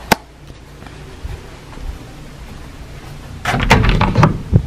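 Doorknob turned and an interior door unlatched and pushed open: a cluster of clicks, rattles and knocks near the end. A single sharp click just after the start.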